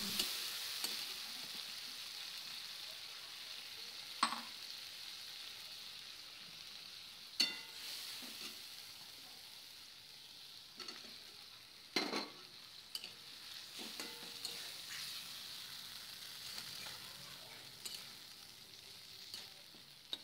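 A spice paste frying in oil in a metal kadai, with a faint steady sizzle as a steel spatula stirs it. The spatula knocks sharply against the pan and a steel plate a handful of times as the fish pieces are pushed in and mixed.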